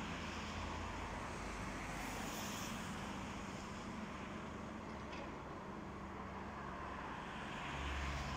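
Distant demolition excavators' diesel engines running, a steady low rumble that grows a little louder near the end.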